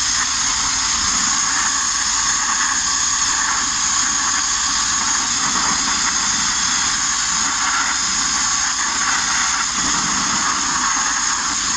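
Abrasive media blasting: compressed air and grit streaming from a blast nozzle onto a van's steel bodywork, a loud steady hiss that does not let up.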